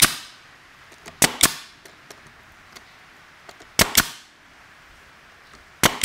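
Pneumatic nail gun firing nails into a pine hive box: sharp shots, mostly in quick pairs, about two and a half seconds apart.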